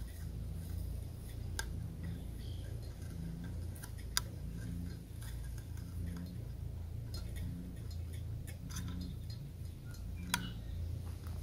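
A multi-tool's can opener working around the rim of a steel food can: a few sharp metal clicks, seconds apart, as the blade bites into the lid, over a low steady rumble.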